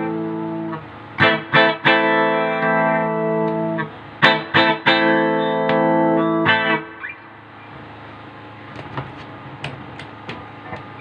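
Hazelman Les Paul electric guitar played through a 1979 Fender Twin Reverb amp and a 1966 Fender Bassman cabinet. Chords are struck a few quick times and left ringing, twice over, then for the last few seconds it drops to quieter picked notes.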